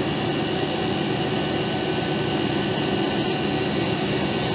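Refrigeration vacuum pump running steadily, a continuous machine noise with a few faint steady tones, while it evacuates the refrigeration system after a compressor change and the vacuum reading drops.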